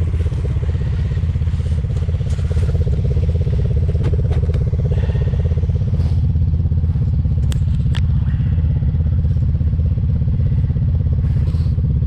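A small engine idling steadily, with a few light clicks.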